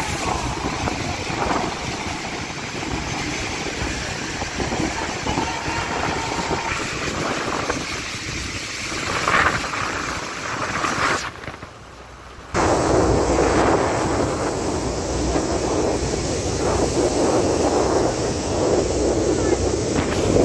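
Steady rush of wind buffeting the microphone over churning water and the roar of Niagara Falls, heard from a tour boat. About halfway through it drops away for a moment, then returns louder and deeper.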